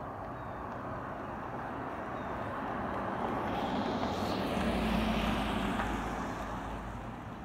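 Freightliner M2 106 truck with a Cummins B6.7 diesel driving past. Its rumble and tyre noise grow to their loudest about five seconds in, then fade.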